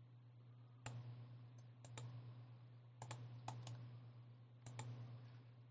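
Faint computer mouse clicking, about ten short clicks, several in quick pairs, over a steady low electrical hum.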